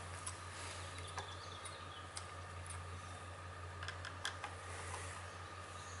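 Faint, scattered light clicks and taps from handling an Echo chainsaw's choke lever and working a tool at its carburetor, over a steady low hum.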